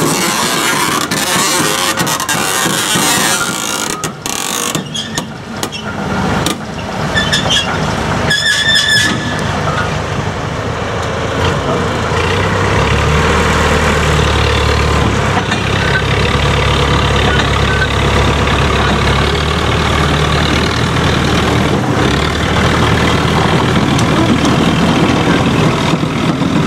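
Diesel rail crane's engine running while it shunts wagons, with knocks and hiss in the first half. About halfway through, the engine settles into a steady low drone.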